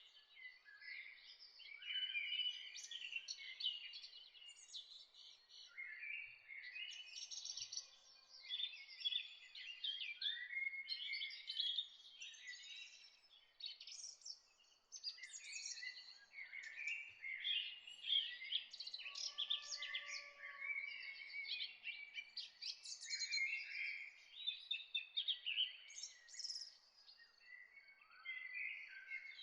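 Songbirds chirping and singing in a busy chorus, short calls and trills overlapping with hardly a pause.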